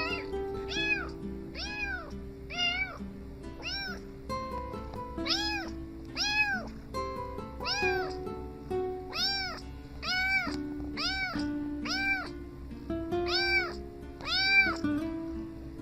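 A cat meowing over and over, a short meow rising and falling in pitch about every two-thirds of a second, over background music with a steady beat.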